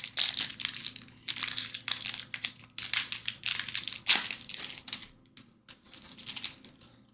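Foil wrapper of a trading card pack crinkling and being torn open, a dense run of short rustles that dies down after about five seconds.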